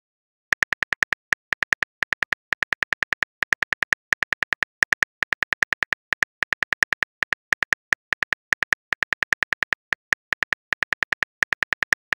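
Simulated phone-keyboard typing clicks, one short click per letter, about eight a second in quick runs with brief pauses.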